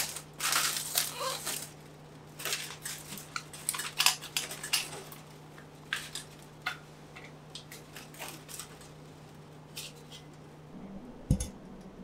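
Aluminium billy can being handled and its lid opened: irregular clinks, taps and scrapes, busy for the first few seconds and then only occasional.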